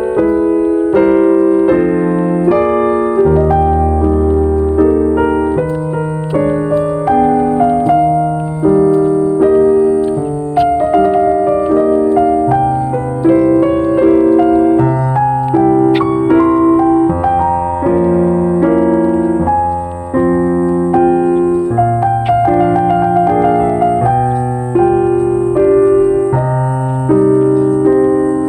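Background music: a gentle piano piece, with notes struck and held over slow, sustained bass notes.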